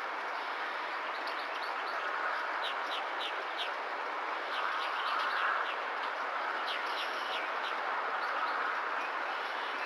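Short high-pitched chirps in quick runs of three or four, over a steady hiss.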